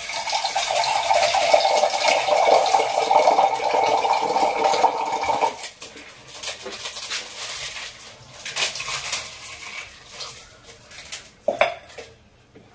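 A cake of dry Maggi instant noodles crunching and crackling as it is broken up by hand over a pan for about five and a half seconds, stopping suddenly. Then scattered light scrapes and clinks of a spoon in the pan.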